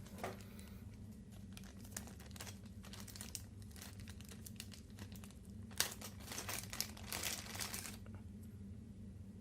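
Keys being typed on an A4Tech Bloody B760 gaming keyboard: scattered key clicks, then a quick flurry of keystrokes from about six to eight seconds in.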